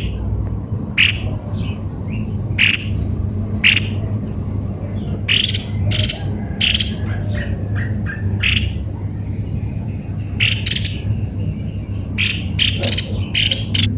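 Cucak kopi-kopi bird calling with short, sharp notes repeated about once a second, sometimes in quick pairs or runs, over a steady low hum.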